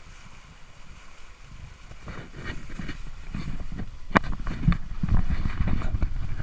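Wind and water noise on a sailing catamaran: an uneven low rumble that swells from about two seconds in, with scattered sharp knocks, the loudest about four seconds in.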